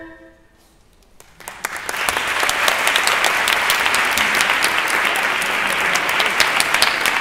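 The last chord of a wind quintet dies away at the very start. After about a second of quiet, an audience starts clapping and quickly builds to steady applause.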